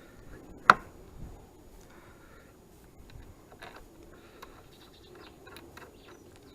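One sharp click or knock a little under a second in, then scattered light ticks and taps.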